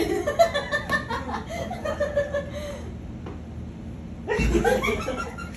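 People chuckling and laughing among themselves, with bits of talk; a short lull a little past halfway, then laughter and voices pick up again.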